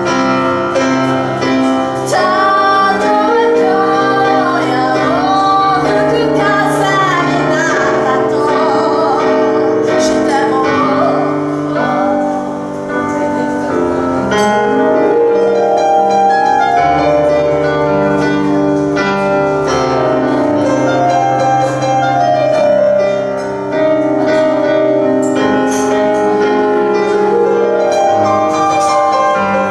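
A woman singing with vibrato while accompanying herself on a grand piano.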